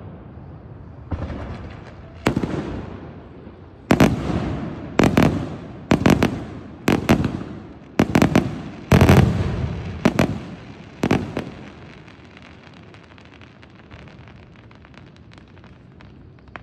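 Aerial firework shells bursting overhead: about ten sharp bangs, mostly a second or so apart, each trailing off in a rolling echo. After about eleven seconds the bangs stop and only faint crackles remain.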